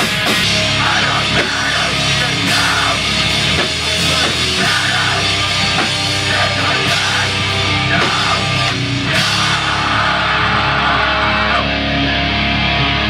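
Loud rock band playing: distorted electric guitars and a drum kit. After about ten seconds the drums and cymbals ease off and ringing guitar chords carry on.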